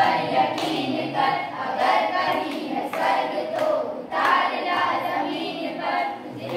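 A group of children singing together in chorus, with hand claps roughly once a second.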